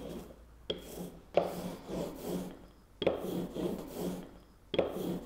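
Hand ink roller (brayer) rolled back and forth through block printing ink on a perspex sheet: about four rolling strokes, each lasting a second or so.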